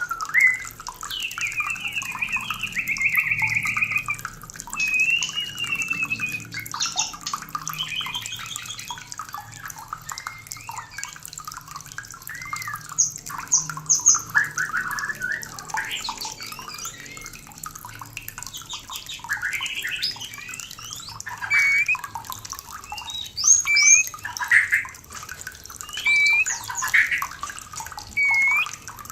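White-rumped shama singing its breeding-season song: a varied run of clear whistles, rising and falling glides and quick trills, with loud, sharp phrases coming thick and fast in the second half. A steady rushing background runs underneath.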